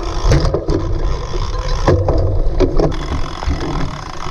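Cyclocross bike riding over rough ground: a steady low rumble and rush of wind over the microphone, broken by a run of sharp knocks and rattles, the loudest about two seconds in.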